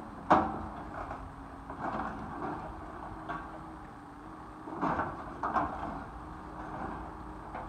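Tracked excavator running steadily while its demolition attachment tears at a wrecked timber and metal building. Crashes and bangs of breaking wood and metal are loudest about a third of a second in, and come again in a cluster around five seconds in.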